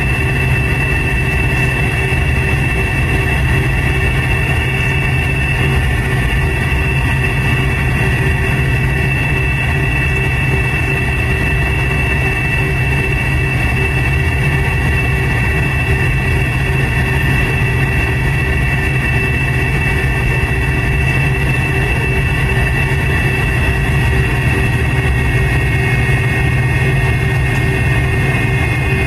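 McDonnell Douglas MD-88's rear-mounted Pratt & Whitney JT8D turbofans running steadily at taxi power, heard inside the cabin: a low drone with a steady high whine on top.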